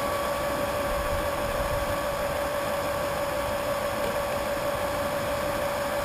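Small electric pump running steadily, pushing hot wort through a plate chiller: a constant whine over an even hiss.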